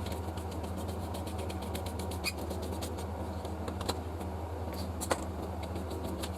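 A steady low electrical hum with a run of small rapid clicks that thin out after about three seconds, and a few sharper clicks about two, four and five seconds in.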